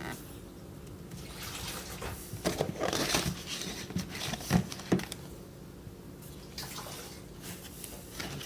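Water splashing and running in uneven bursts for a few seconds, with a few sharp knocks among them, over a steady low hum.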